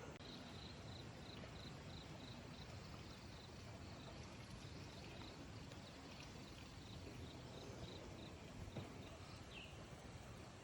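Faint outdoor ambience: a steady low hiss with a high, even chirp repeating about three times a second, which stops after about six seconds.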